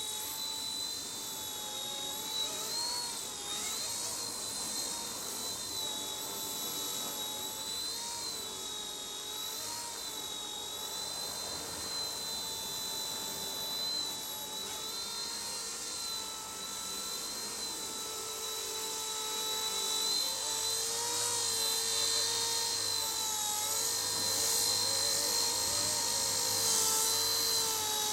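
Small electric RC helicopter (RC Era C138, 1/33-scale Bell 206) in flight: a steady high-pitched motor and rotor whine, its pitch wavering slightly as the model is flown, growing a little louder in the second half.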